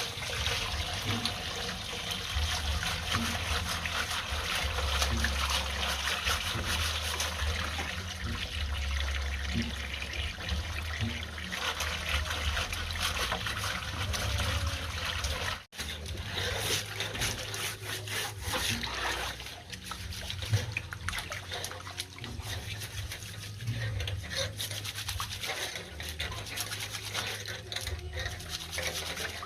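Running water splashing while electric fan parts are scrubbed with a brush, with a brief dropout about halfway through.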